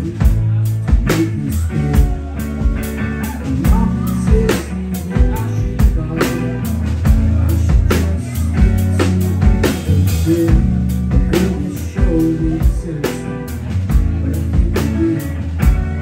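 Live rock band of electric guitar, electric bass and drum kit playing a song together, with a heavy bass line under a steady drum beat.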